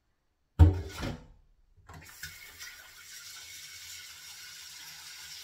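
A stainless saucepan clunks down into the steel kitchen sink, once and loudly, then about two seconds in a tap starts running with a steady hiss.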